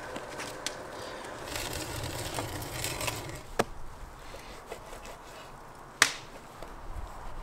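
Kitchen knife cutting raw bison meat on a wooden cutting board, with sharp knocks of the blade on the board; the loudest knock comes near the end.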